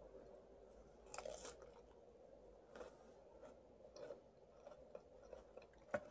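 Faint crunching of raw leaf vegetable leaves being bitten and chewed: a sharp crunch about a second in, several softer crunches after, and a short sharp click near the end.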